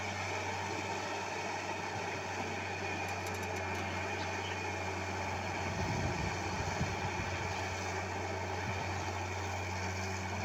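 Diesel engine of a wheeled excavator running with a steady low hum, with heavier, uneven rumbling about six seconds in as the bucket digs into the sand bank.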